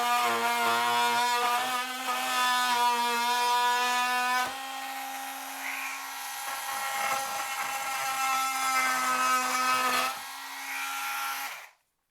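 Milwaukee M12 oscillating multi-tool running with its blade cutting into a small piece of pine: a steady buzz with a high whine. It is loudest for the first four or so seconds, runs quieter after that with another drop near ten seconds, and stops just before the end.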